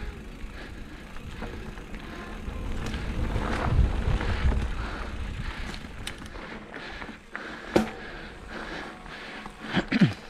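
Mountain bike riding over a rough dirt trail: tyres rolling and scraping over dirt and rocks with the bike rattling, the rumble swelling about four seconds in. Two sharp knocks, about eight and ten seconds in.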